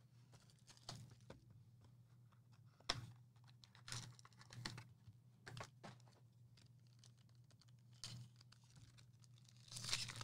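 A trading-card pack's wrapper and cards being handled, faintly: scattered crinkles, rustles and small clicks, over a steady low electrical hum.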